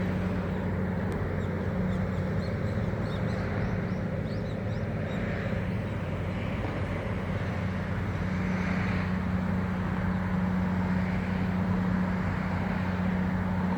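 A steady engine drone with a low, even hum, and birds chirping from about a second in until about five seconds in.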